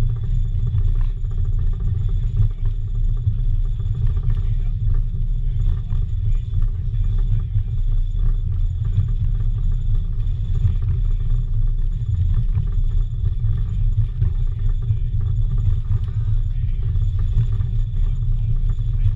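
Steady low rumble of a moving railway passenger coach, heard from on board, with wind buffeting the microphone. It runs on without breaks or rhythm.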